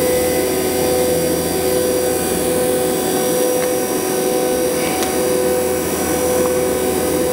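Two Fieldpiece VP85 8 CFM DC-motor vacuum pumps running steadily in vacuum, a constant hum with a few faint clicks.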